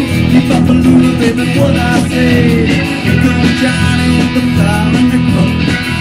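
Live rock band playing: electric guitar, bass guitar, drum kit and keyboard, with sustained, gliding lead notes over a steady beat.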